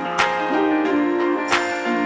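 Background music with held notes and a sharp percussive hit twice, about a second and a half apart.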